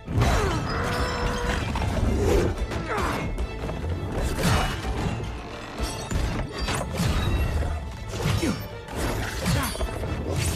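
Dramatic film score under the sounds of a sword fight: many sharp metallic blade clashes and crashing impacts, coming every second or so.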